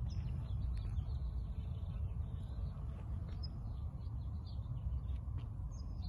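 Small birds chirping faintly here and there over a steady low rumble on the microphone.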